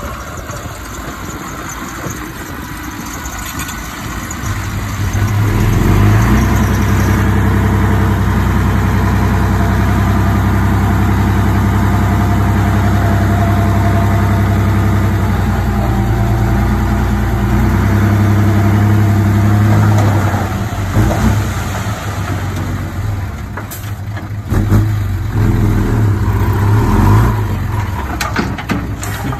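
Diesel engine of heavy earthmoving machinery running, getting louder about five seconds in and holding steady, then rising and falling with a few sharp knocks near the end.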